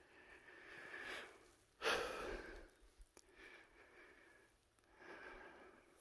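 A man breathing heavily, out of breath from hiking up a steep slope: three long, hissing breaths, the loudest about two seconds in.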